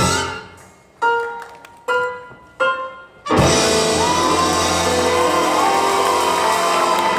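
Live swing jazz band with horns ending a tune. The band stops short and rings away, three short stop-time chords follow about a second apart, and then a loud final chord is held as the crowd begins to applaud and cheer.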